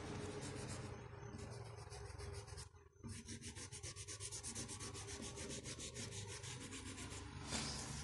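Fingers rubbing over oil pastel on paper to blend the colours: a dry scratchy rubbing that stops briefly about three seconds in, then goes on as fast, even back-and-forth strokes. Near the end there is a single louder scrape.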